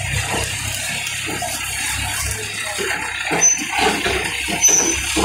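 Diesel engine of a tractor-mounted hydraulic crane running low under a steady hiss while it lifts teak logs. Scattered short knocks and clatters come in the second half.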